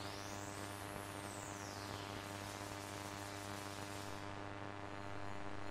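Steady electronic hum with many overtones under a hiss of static, with a high whistling tone sweeping upward during the first second or two.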